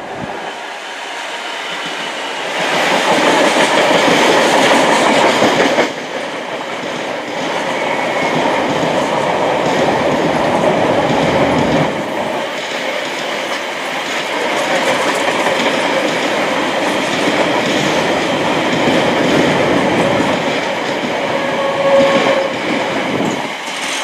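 Class 66 diesel locomotive's two-stroke EMD engine running as it hauls a long freight train past at speed, loudest in the first few seconds as the locomotive goes by. Then the freight wagons rumble and clatter rhythmically over the rail joints, with a short squeal near the end.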